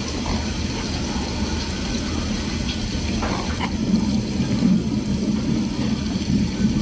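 Close-miked ASMR eating sounds of crumbly white powdery food from a clear plastic tub with a metal spoon: a steady low noise, with a couple of soft clicks about three seconds in.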